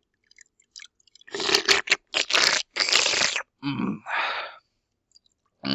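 Hands squishing and stirring partly grown, still shrivelled water beads (Brainbows) in a bucket held close to the microphone. It starts with a few faint clicks, then comes a run of loud wet crunching and scraping from about a second and a half in to three and a half seconds, and two shorter bursts after that.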